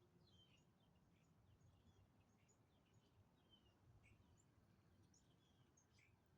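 Near silence with faint birds chirping: many short, scattered calls over a low, steady background rumble.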